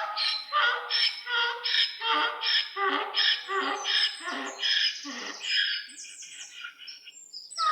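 An animal giving a rapid series of short squawking calls, about two a second, which thin out and fade after about five seconds.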